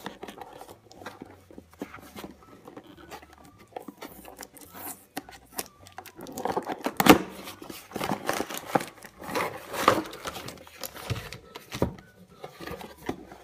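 Cardboard toy box being opened by hand: irregular tearing, scraping and crackling of the card and flaps, busiest about halfway through.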